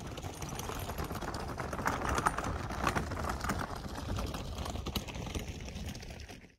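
Footsteps walking along a trail: a steady run of small knocks and crunches with a low rumble underneath.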